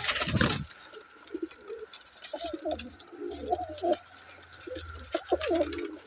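Domestic pigeons cooing, a run of short low wavering coos overlapping one another, after a brief loud rustling burst at the very start.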